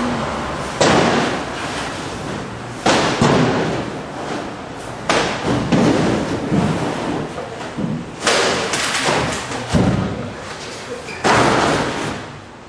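Heavy thuds and bangs from goods being dropped and knocked about by movers: about six loud impacts, roughly two seconds apart, each with a short rumble after it.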